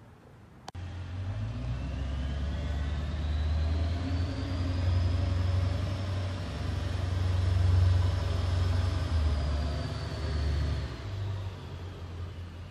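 Jet airliner passing overhead: a low engine rumble with a faint high whine that slowly rises and then falls, loudest about eight seconds in. It starts sharply with a click about a second in.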